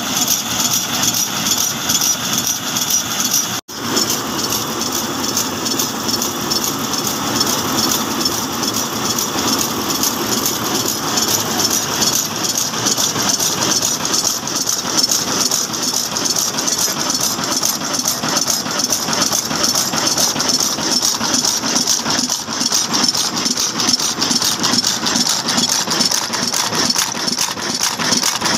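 Old horizontal single-cylinder stationary diesel engine with a heavy flywheel running steadily under belt load, a rapid, even mechanical clatter. The sound cuts out for an instant about three and a half seconds in, then carries on unchanged.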